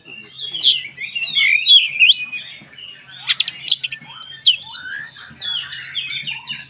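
Oriental magpie-robin (kacer) singing loudly and energetically: a rapid, varied string of sharp whistles and chirps, with a burst of harsh clicking notes about three seconds in.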